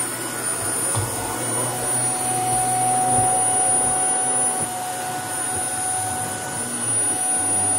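Canister vacuum cleaner running steadily: a constant motor whine over a rushing of air, with a thin high whistle on top.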